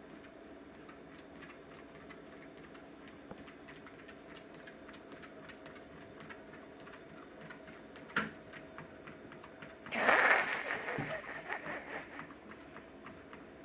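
Treadmill running with a steady motor hum and belt noise, and the dog's paws ticking in a quick even patter on the belt. A single sharp knock comes about eight seconds in, and about ten seconds in a louder clatter with a high ringing note lasts about two seconds.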